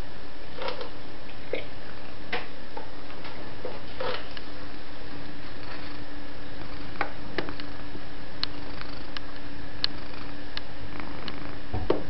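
Scattered light clicks and taps of a cat's paws and claws on the plastic top of a refrigerator, irregular and a second or so apart, over a steady low hum. A dull thump comes near the end.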